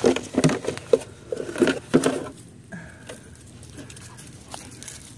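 Footsteps and handling noise: a run of irregular knocks and rustles over the first two seconds or so, then much quieter with only a few faint ticks.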